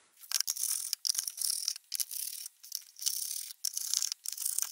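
A screwdriver backing screws out of a plastic battery-charger case: a run of short, dry rasping and rattling strokes with brief pauses between them.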